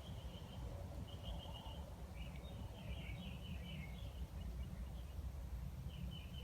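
Birds chirping in short runs of high notes, several times, over a low steady rumble.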